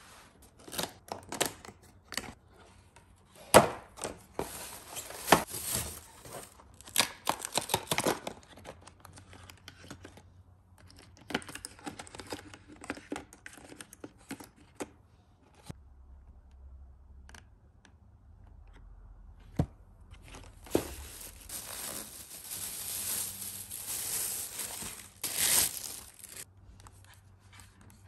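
Cardboard box and plastic packaging being opened and handled during a coffee-machine unboxing. The first half is a run of knocks and rustles, and later comes a few seconds of steady crinkling and tearing.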